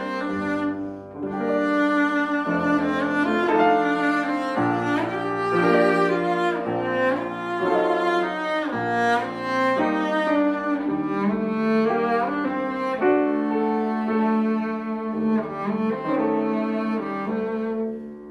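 Cello and grand piano playing classical chamber music together: the bowed cello holds long singing notes, changing every second or two, over the piano's accompaniment.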